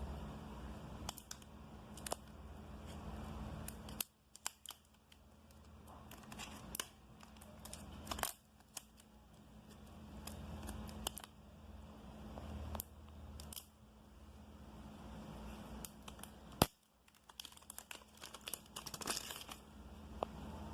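Packaging being handled and unwrapped: quiet crinkling and tearing with scattered small clicks, broken by several abrupt cuts.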